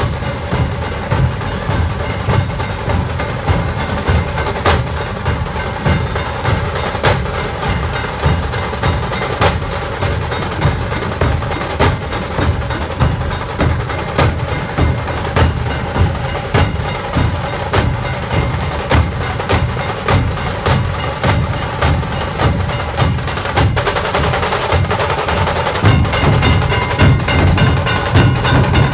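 A dhol tasha pathak playing: large double-headed dhol barrel drums beat a driving rhythm while tasha drums rattle sharply over it. The ensemble grows louder near the end.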